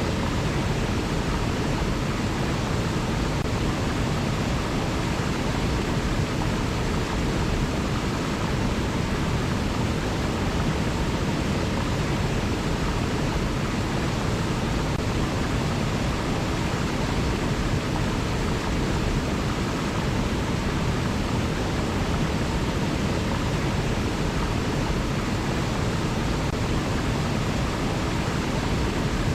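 River water rushing steadily, an even, unbroken noise heaviest in the low end.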